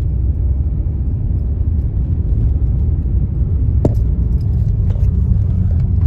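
A car driving, giving a steady low rumble of road and engine noise, with a brief click about four seconds in.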